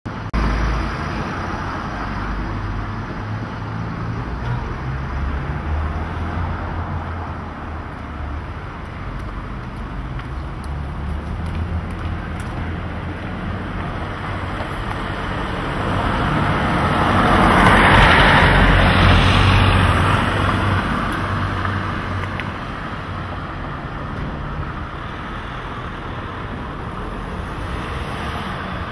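Street traffic: a steady hum of road noise from passing cars, with one vehicle passing close about two-thirds of the way through, growing louder and then fading away.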